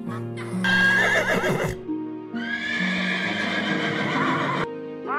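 Horse whinnying twice over background music: a short, quavering whinny about a second in, then a longer one from about two and a half seconds in.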